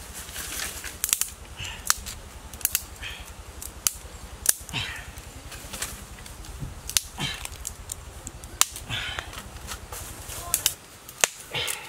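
Dry sticks snapping sharply by hand, about ten snaps at irregular intervals, with brief rustling of twigs and dry leaves between them as the wood is laid for a fire.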